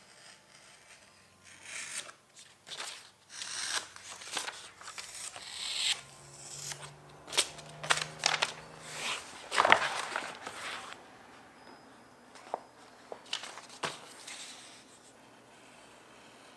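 A hobby knife cutting through a paper pattern on a cutting mat, with the paper rustling and crinkling as the cut pieces are handled. It comes as a string of short scratchy cuts and rustles, loudest about ten seconds in.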